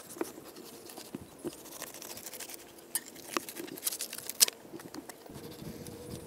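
Fillet knife slicing and scraping through buffalo fish meat and rib bones on a wooden board, with irregular small clicks and a few sharper ticks a little past the middle.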